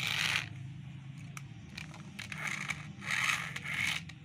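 Plastic toy car chassis scraping and sliding on a tile floor as it is moved and turned over by hand: a few short scrapes, one right at the start and several near the end, over a low steady hum.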